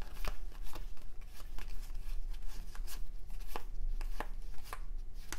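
Stack of 1993 Topps baseball cards being thumbed through one card at a time: short, irregular cardboard clicks and snaps, about two a second, as each card slides off the stack.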